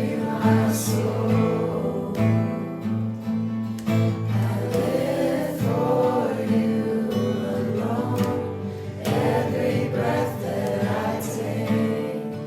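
A group of voices singing a worship song together, accompanied by strummed guitar.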